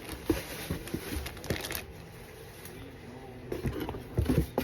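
Packaging and paper being handled: irregular rustling with small knocks and taps as items are taken out of a box.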